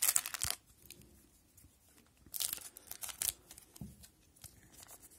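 Foil wrapper of a hockey card pack being torn open and crinkled in the hands, in two crackly bursts: one at the start and one about two and a half seconds in.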